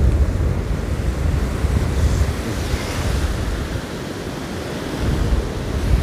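Sea surf breaking and washing up the beach, with wind buffeting the microphone in a heavy low rumble that eases briefly about four seconds in.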